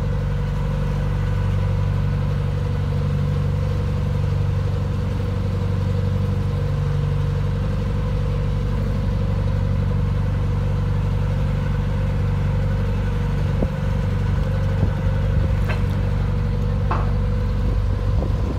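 A narrowboat's engine running steadily at an even cruising speed. A few light knocks come near the end.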